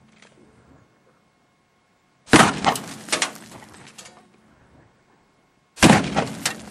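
Two rifle shots from a .45-70 Government, about three and a half seconds apart. Each is a sharp crack followed by a rolling echo that dies away over about a second.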